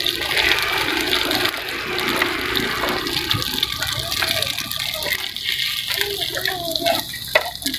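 Egg batter sizzling as it fries in the oiled cups of a hot cilor pan, around diced starch dough and macaroni. A steady frying hiss, strongest in the first few seconds.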